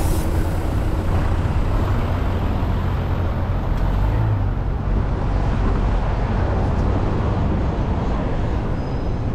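City street ambience: a steady low rumble of traffic.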